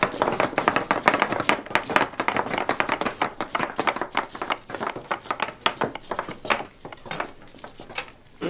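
Several cooks slicing onions with chef's knives on a wooden table: a fast, uneven clatter of blade strokes on the board, many strikes a second, growing sparser near the end.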